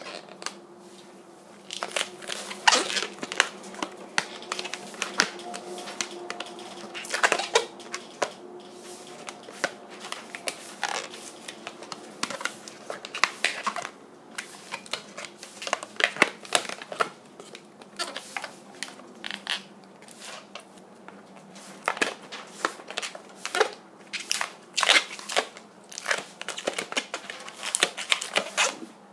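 Inflated black latex modelling balloon squeaking and rubbing under the fingers as it is twisted into segments, in many irregular short squeaks.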